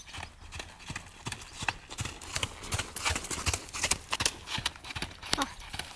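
Hoofbeats of a ridden pony moving over a sandy arena track: a run of sharp, irregular clops, loudest as it passes close by.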